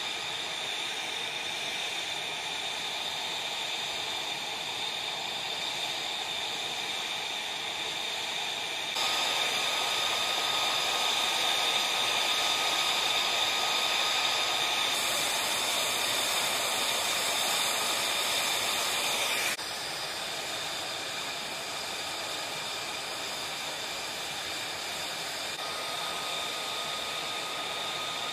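F-35 Lightning II jet engine running: a steady hiss with a high, even whine. It changes abruptly at several cuts and is loudest between about 9 and 19 seconds in.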